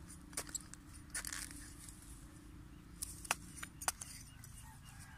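A small metal-bladed ramba (hand weeding tool) scraping and chipping into dry, hard-baked soil to dig out garlic: irregular sharp scrapes and crunches, several in a few seconds, over a low steady rumble. The ground is so dry that the digging is hard going.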